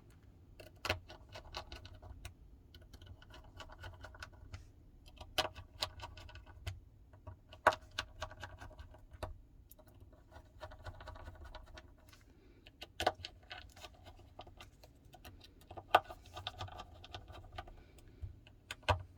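Small screws being driven back into a smartphone's frame with a precision screwdriver: scattered sharp clicks and taps of metal on metal, with short faint stretches of turning noise between them.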